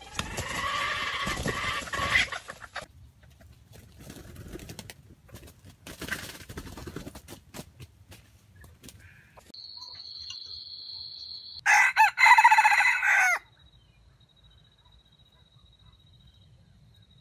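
Red junglefowl (wild chicken) rooster crowing. One loud, broken-up crow lasts about a second and a half after the middle, and a fainter call comes at the start.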